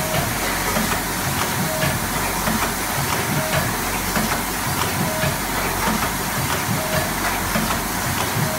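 C21DX ultrasonic pyramid tea bag packing machines running together: a steady mechanical hiss and clatter, with a short tone repeating about every second and a half.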